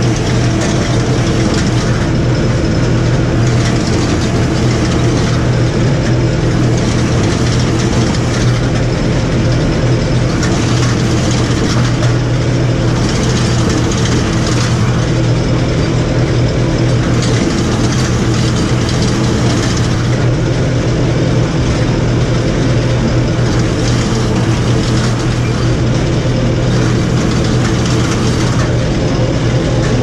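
New Holland T4.75 tractor's four-cylinder diesel engine running steadily under load, heard inside the cab.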